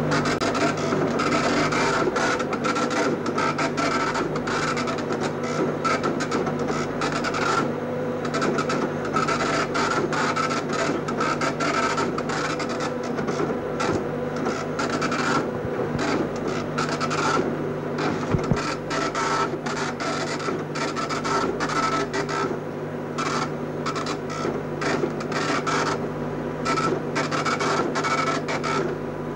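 Computer impact printer chattering as its print head runs line after line across tractor-fed continuous paper, printing out work papers, over a steady low hum.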